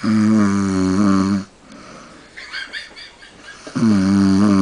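A man snoring loudly: two long snores with a steady buzzing pitch, each about a second and a half, the second beginning about three and a half seconds after the first.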